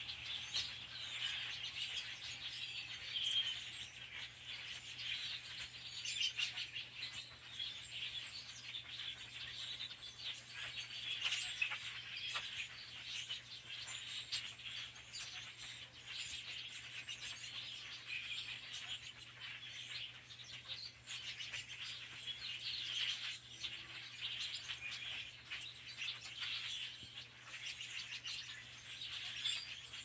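A large flock of a few hundred small birds chattering and chirping all at once, many calls overlapping into a continuous commotion.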